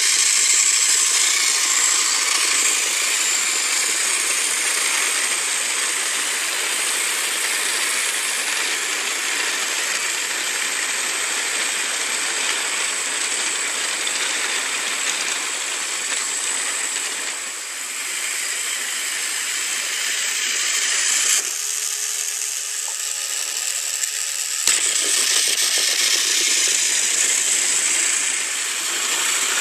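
TrackMaster Gordon motorised toy engine running steadily, its small electric motor whirring while the plastic wheels and a long train of coaches rattle over plastic track. About three-quarters of the way in, the sound briefly changes to a lower, steadier hum.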